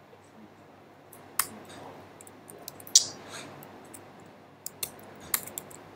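A handful of scattered sharp clicks from a computer keyboard and mouse as code is edited, the loudest about three seconds in.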